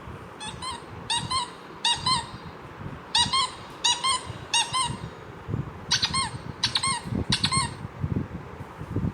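Funny phone ringtone made of squeaky, pitched chirps. It plays in pairs, in three runs of three pairs, with short pauses between the runs.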